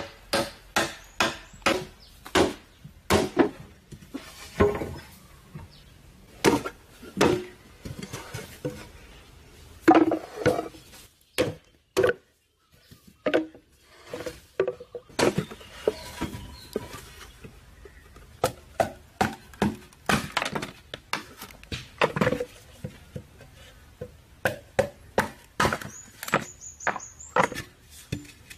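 Repeated chopping strikes of a blade into wood or bamboo, about one to two a second, each with a short hollow ring, broken by a pause of about two seconds near the middle.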